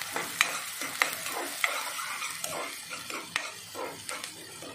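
Metal ladle stirring chopped onions and ginger-garlic-chili paste frying in oil in a metal kadhai: a steady sizzle with sharp clinks and scrapes of the ladle against the pan about once a second.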